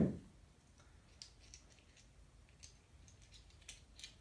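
A dull knock right at the start, then faint, scattered light clicks of metal tool parts being handled on a cam bearing installation tool.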